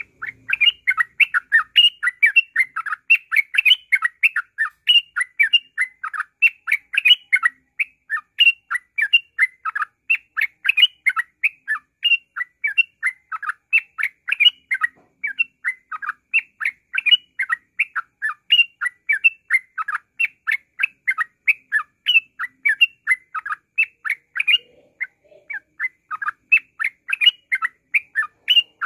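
Yellow-vented bulbul (trucukan) singing nonstop in a rapid chattering run of short notes, about three or four a second, with a brief pause about 25 seconds in.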